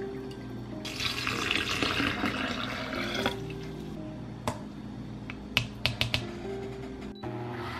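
Water being poured into a blender jar of oats for oat milk, a steady splashing for about two seconds, followed by a few sharp taps, over soft background music.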